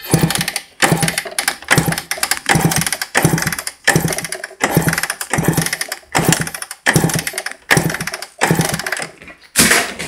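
Small motorcycle engine cranked over with its spark plug out, in about a dozen strokes a little over a second apart, as the CDI ignition is tested for spark.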